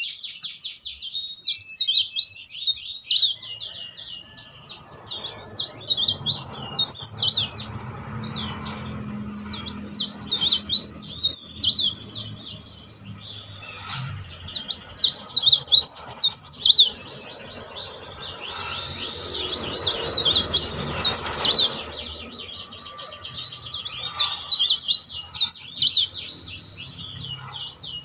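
Cikrak daun (mountain leaf warbler) singing in its cage: loud, shrill, rapid high-pitched trilled phrases. They come in bursts of two to three seconds, with a new burst about every four to five seconds and quieter twittering between.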